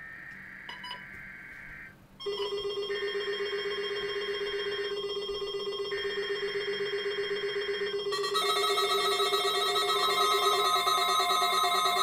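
NOAA Weather Radio SAME data header for a Required Weekly Test: three screechy two-second bursts of digital data with short gaps. Over it, several weather radios sound their beeping alert tones from about two seconds in, and more radios join with higher beeps about eight seconds in.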